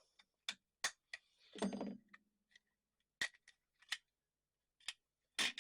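Sharp plastic clicks and snaps, about seven spread unevenly, as the case clips of a Roberts DAB5 pocket radio are pried apart with a pry tool. A short vocal hum about a second and a half in.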